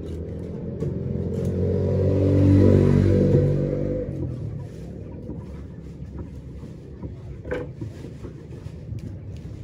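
A motor vehicle's engine passes close by, growing louder over about three seconds and fading away about four seconds in. After it fades, a few short knocks of a large knife on the wooden chopping block.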